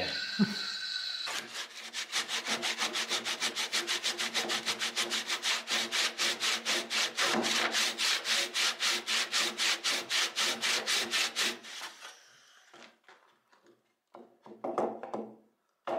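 Hand saw cutting across a thick timber beam with fast, even back-and-forth strokes. The sawing stops about twelve seconds in and is followed by a few faint knocks.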